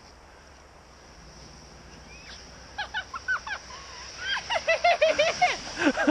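A woman laughing and squealing in quick, high-pitched bursts while sliding down a snowy slope. The laughter starts about three seconds in and gets louder near the end.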